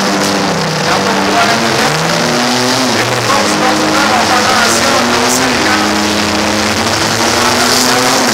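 Several demolition-derby cars' engines revving and running hard at once, their pitches rising and falling and overlapping.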